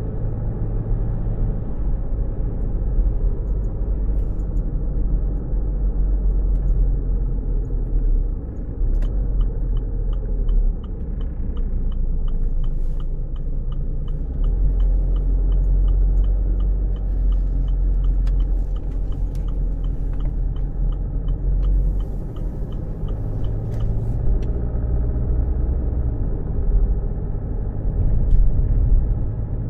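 Car heard from inside the cabin, a steady low rumble. From about nine seconds in until about twenty-four seconds, the turn-signal indicator ticks evenly, about twice a second.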